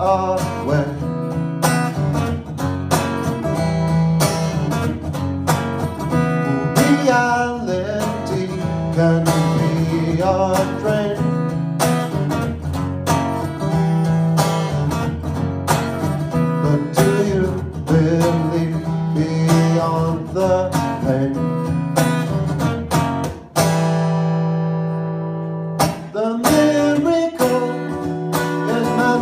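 Acoustic guitar strummed steadily with a man singing over it. About 23 seconds in, one chord is left to ring out for a couple of seconds, then the strumming picks up again.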